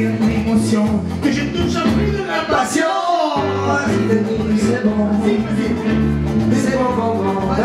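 Amplified live music through a PA: a keyboard backing with a strong bass line and a Latin-style dance beat, with a man singing into a microphone. The bass drops out briefly about three seconds in, then comes back.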